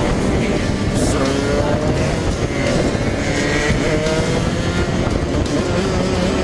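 Dirt bike engine running under way, its pitch rising and falling with the throttle, over heavy rumbling wind noise on the microphone.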